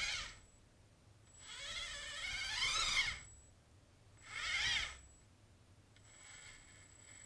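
Small DC gear motors of a Makeblock mBot Ranger tracked robot whining as it drives in about four short spurts. The whine wavers and climbs in pitch within each spurt.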